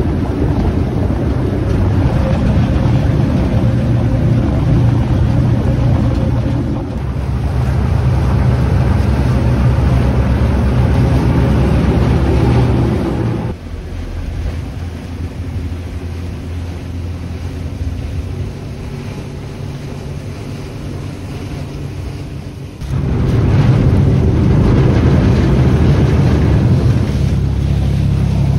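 A vaporetto water bus's diesel engine running with a deep, steady rumble, with water rushing along the hull and wind buffeting the microphone. About halfway through the engine drops much quieter for around nine seconds, then comes back loud.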